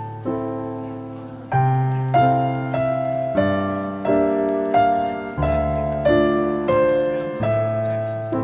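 Slow piano music: single melody notes over deep bass notes, a new note struck about every two-thirds of a second, each ringing and fading.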